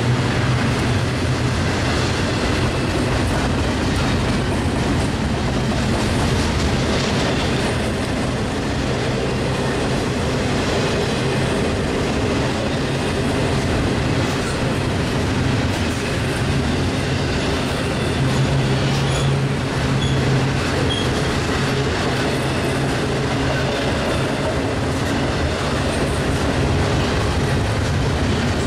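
Double-stack intermodal container train rolling past, a steady, unbroken noise of its well cars' steel wheels running on the rails.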